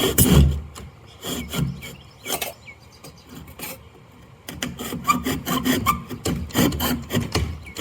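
A saw cutting through the wood of a door in repeated rasping strokes, with a short lull in the middle and quicker, denser strokes in the second half.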